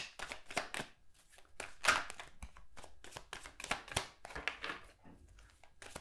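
A deck of tarot cards being shuffled by hand: a run of irregular, soft card slaps and rustles.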